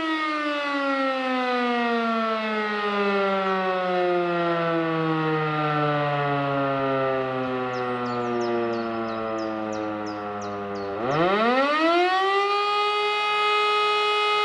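E57 electromechanical siren sounding the fire-brigade alarm: its tone falls slowly in pitch as the rotor winds down for about eleven seconds, then spins quickly back up and holds steady again near the end. This wind-down and restart is one of the breaks that mark the German fire-brigade call-out signal.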